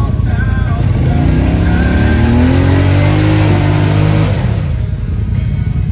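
ATV engine revving hard under load as the quad pushes through deep mud, its pitch climbing for about three seconds, then dropping off suddenly as the throttle comes off.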